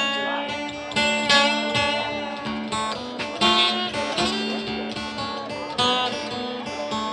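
Live acoustic guitar picked and strummed through an instrumental passage of a song, with a drum kit playing along.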